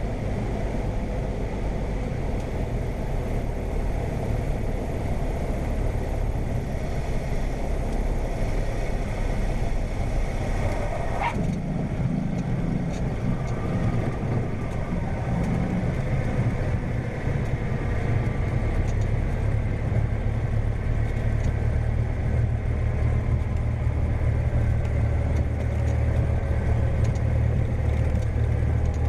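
Cessna 172M's four-cylinder Lycoming engine running at low power, heard from inside the cabin during landing and rollout, a steady low drone. About eleven seconds in, a brief rising whistle sounds, and the drone grows a little louder in the second half.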